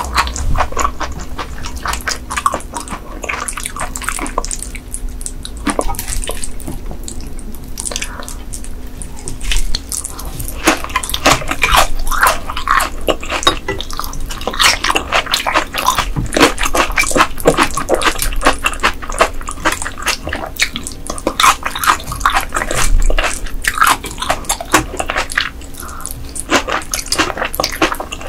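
Close-miked wet chewing and mouth sounds from eating raw ice goby sashimi and dressed salad: dense moist clicks, smacks and squelches.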